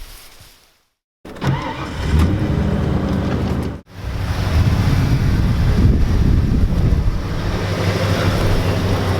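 Ford F-350 pickup truck's engine running. The sound drops out for a moment about a second in and again near four seconds in.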